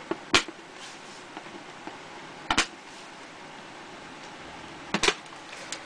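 Sharp plastic clicks of an MSI GT628 laptop's keyboard latches snapping free as they are pried with a screwdriver: one about a third of a second in, then a double click near the middle and another double click near the end.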